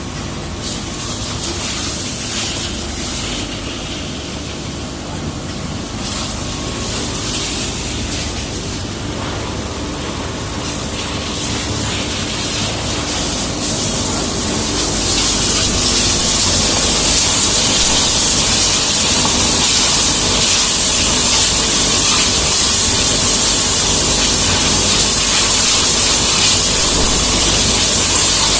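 Oblique grinder for plywood face panels running: a steady motor hum under a hiss of grinding. The hiss grows louder about halfway through, then holds steady.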